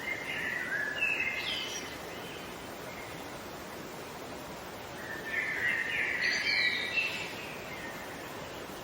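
A songbird singing two short, quick phrases of chirps and sweeping notes, about five seconds apart, over a steady background hiss.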